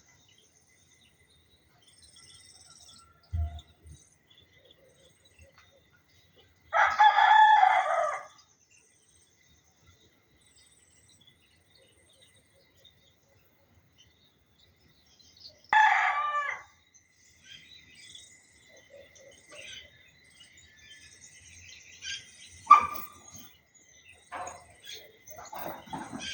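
Rooster crowing twice, about nine seconds apart, the first crow the longer, amid scattered small bird chirps. A thin steady high tone sets in after the second crow, and a sharp click comes near the end.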